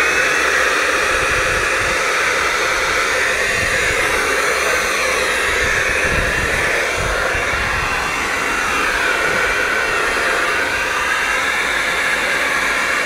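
Orange corded electric leaf blower running steadily at full power, blowing air through the valve into an inflatable water-walking ball to inflate it.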